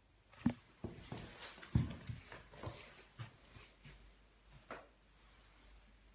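Irregular soft thumps and rustling, about three a second for the first few seconds and then one more: footsteps on carpet and handling of a handheld camera in a small empty room.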